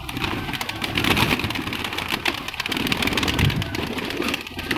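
A flock of domestic flying pigeons fluttering and clattering their wings, with low cooing among them. The birds are scattering as a handler reaches in to catch them in their wire-mesh loft.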